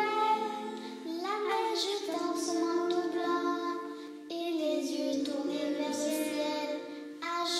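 Young girls singing a Christmas song with musical accompaniment, in long held notes that change every second or two.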